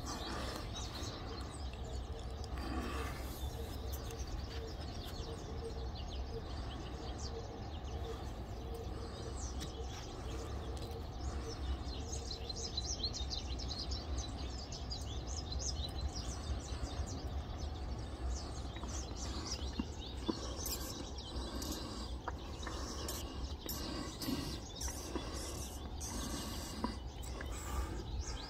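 Small birds chirping outdoors over a steady low rumble of background noise, with a faint low note repeating evenly through the first part.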